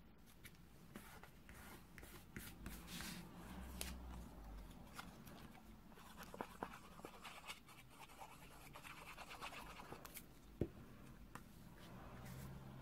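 Faint handling of paper and cardstock: light rustling, sliding and small taps as patterned paper strips are glued and pressed down, with one sharper tap late on.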